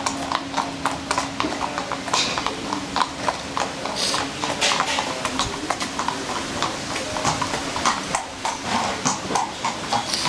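A horse's hooves clip-clopping at a walk on asphalt: an uneven, steady run of sharp hoofbeats.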